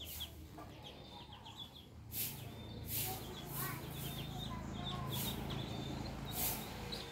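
A brood of ducklings peeping, quick short high peeps in overlapping runs, with a few short, sharp, louder noises among them and a faint low hum in the background from about two seconds in to near the end.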